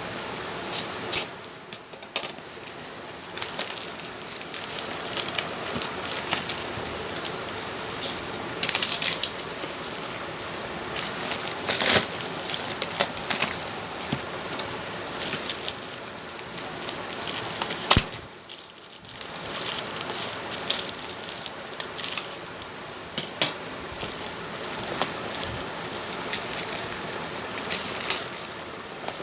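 Packaging and books being handled during unboxing: irregular crinkling and crackling of wrapping, with a few sharper knocks, over a steady background hiss.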